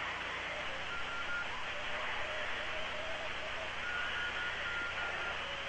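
Steady hiss of an open space-to-ground radio channel, with faint thin tones that come and go.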